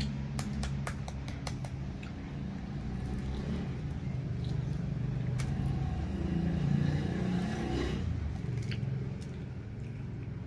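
A metal spoon taps a boiled balut duck egg's shell about six times in quick succession to crack it. Under it runs a steady low engine hum from a vehicle, which swells and fades again past the middle.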